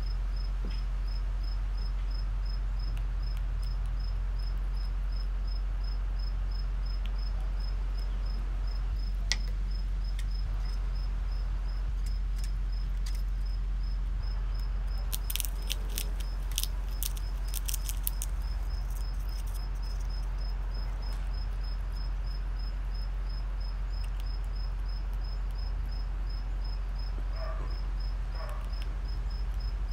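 A cricket chirping in fast, even pulses over a steady low hum, while a black squirrel eats a peanut; a flurry of sharp clicks from its teeth on the shell comes about halfway through.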